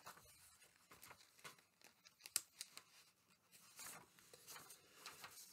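Near silence: quiet room tone with a few faint, scattered clicks and rustles, the clearest a little over two seconds in.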